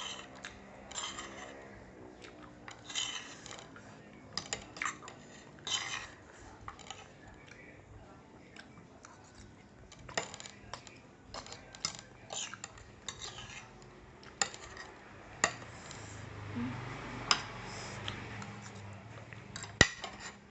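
Cutlery clicking and scraping against a bowl of instant noodles as someone eats, with sharp clicks every second or so and a few short, noisier eating sounds between them.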